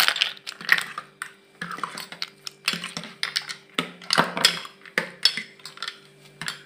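Steel ladle stirring ice cubes in a stainless steel pot of liquid, clinking against the pot's sides and the ice in a quick, irregular run of clinks and rattles.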